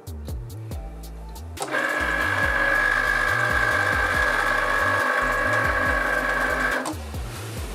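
Cricut Explore Air 2 cutting machine's motors whining steadily for about five seconds, starting a couple of seconds in, as the cutting mat with cardstock is drawn through the rollers.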